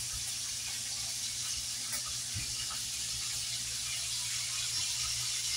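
Small whole fish frying in hot oil in a pan, a steady sizzle.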